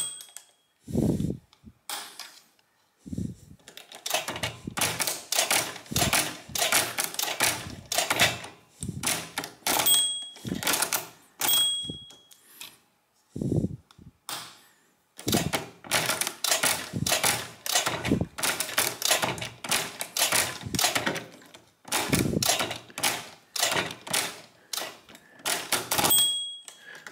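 Odhner's Arithmometer pinwheel mechanical calculator cranked over and over, a fast run of clicking turns with a heavier thud now and then. Its overflow bell dings briefly about three times, near the middle and near the end: each ding marks a subtraction that has gone past zero and must be undone.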